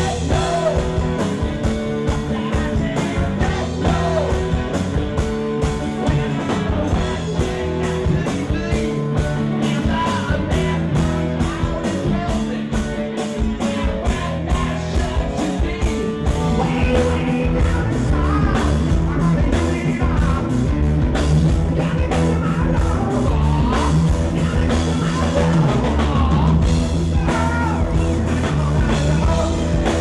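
Live rock band playing: a male lead singer over electric guitar and drums with a steady beat.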